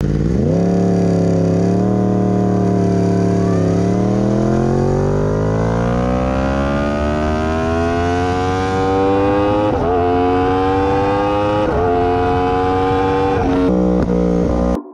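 2016 Yamaha R1M's crossplane inline-four engine and exhaust under acceleration. The pitch climbs steadily through the revs, drops sharply for upshifts about ten and twelve seconds in, climbs again, and falls once more near the end before cutting off suddenly.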